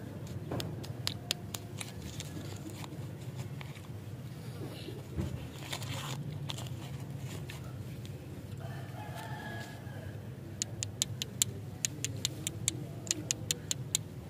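Plastic lollipop wrapper crinkling and crackling as fingers peel it open, with a quick run of sharp crackles near the end.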